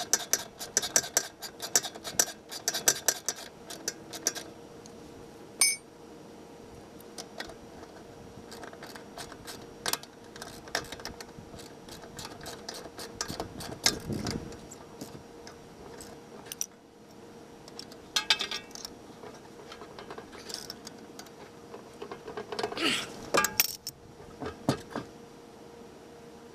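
Metal tools, bolts and suspension parts clinking and clicking while being handled and fitted, with a quick run of clicks in the first few seconds and scattered knocks after.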